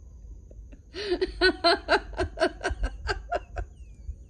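A person laughing, a quick run of breathy bursts at about four or five a second, starting about a second in and lasting about three seconds.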